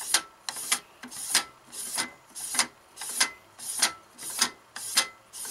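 Free-float handguard being spun by hand onto the fine threads of an AR-15 barrel nut: a rasping, rubbing stroke with each turn, repeating about every 0.6 seconds.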